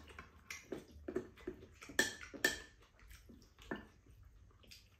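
Spoon and chopsticks clinking and scraping against bowls and a frying pan: a series of sharp clinks, the loudest two close together about two seconds in.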